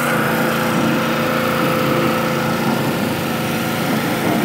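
Small gasoline engine of a cart-mounted pressure washer running steadily at constant speed.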